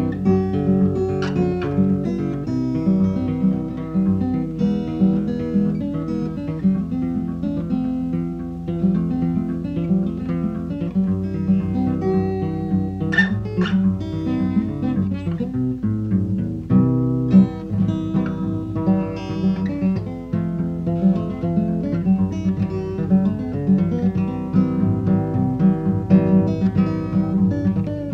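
Solo acoustic guitar fingerpicked, with steady bass notes under a picked melody line and no singing.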